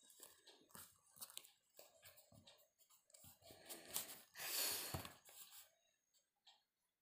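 Pencil scratching on drawing paper along a small plastic ruler, with the paper and ruler being handled and shifted in short rustles; the loudest rustle comes about four and a half seconds in.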